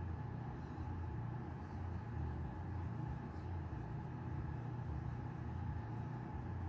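A steady low mechanical rumble, like an engine or machine running in the background, with no sharp events.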